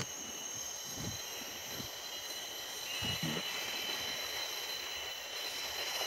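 Steady high-pitched drone of forest insects, several even tones held at once, with another buzzing tone joining about three seconds in. A few faint low bumps sound under it.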